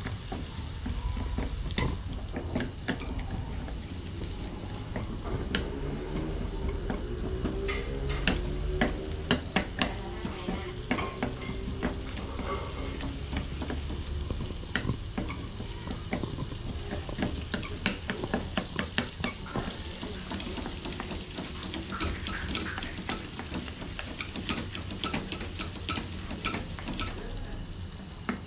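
Butter melting and sizzling in a hot metal wok while a wooden spatula stirs it, with frequent quick taps and scrapes against the pan.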